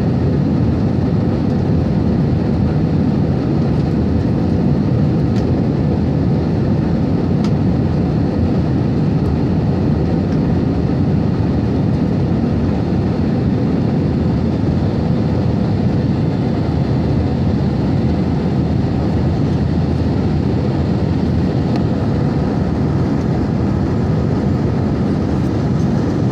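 Jet airliner cabin noise heard from a window seat in flight shortly after takeoff: the steady noise of the engines and the air rushing past, with a faint steady hum in it.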